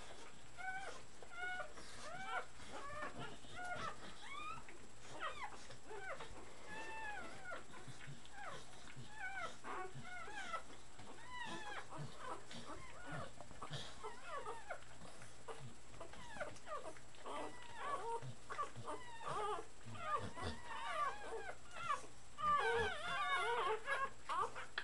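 Three-week-old puppies whimpering and squeaking, a stream of short, high, arched cries that overlap and grow busier and louder near the end.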